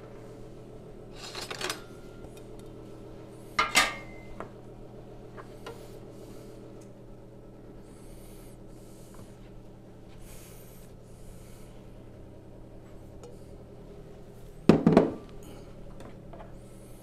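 Metal frying pan handled and set down on a stovetop: a few clanks, the loudest about fifteen seconds in, with softer scraping between them over a steady low hum.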